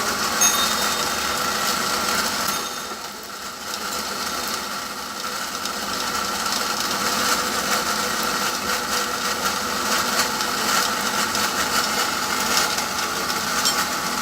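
A motor-driven workshop machine running steadily with a constant whine and light clatter, dipping in level briefly about three seconds in.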